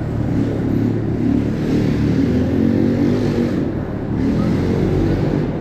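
Small motorbike engines running and revving close by, over a low rumble of wind and road on the microphone.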